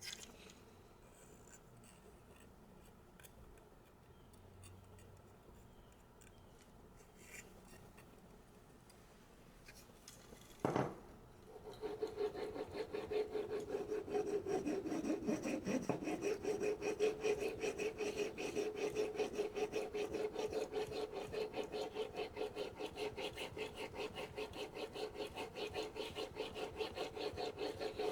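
A faint handling clicks, a single sharp knock a little before halfway, then a knife blade held in a sharpening guide is stroked back and forth on a whetstone: a steady, rhythmic rubbing, with the guide running along the countertop.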